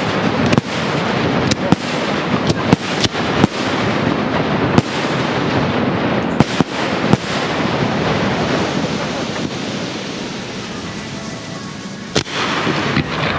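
Aerial fireworks display: a quick run of sharp shell bursts over a continuous crackle for the first seven seconds or so. The din then thins out, and a couple more bangs come near the end.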